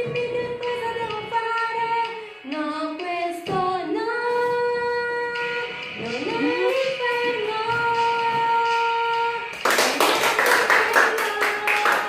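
A high solo voice singing a melody in long held notes, some sliding between pitches. Near the end a group breaks into clapping in applause.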